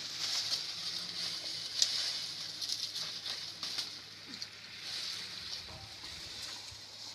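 Dry bean plants rustling and crackling as dried pods are picked by hand: irregular small snaps and rustles over a steady high hiss.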